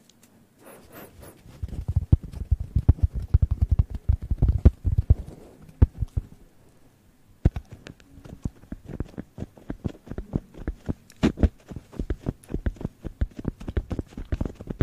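A white cloud-shaped object is rubbed and tapped directly on a microphone, close-miked. First comes a few seconds of dull low thumps, then a short pause, then a long run of quick, crisp taps and scratches.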